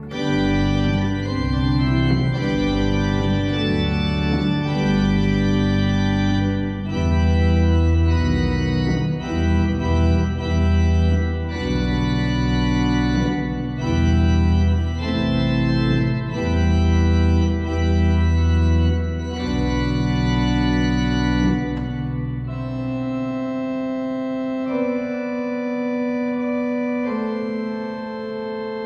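Balbiani Bossi Vegezzi pipe organ playing sustained chords on the manuals over deep pedal bass notes. About three-quarters of the way through, the pedal bass drops out, leaving a quieter passage of higher held notes.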